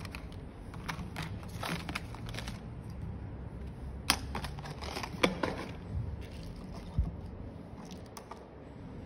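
Clear plastic tub of small phone-repair parts and cables handled and moved, with light plastic clicks and rustling. A few sharper clacks come about four, five and seven seconds in.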